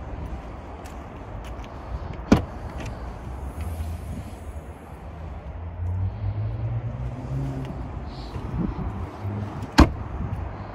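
Boot lid of a Mini John Cooper Works hatchback: a sharp clunk about two seconds in as the latch releases, and a louder slam near the end as the lid is shut. A steady low rumble runs underneath.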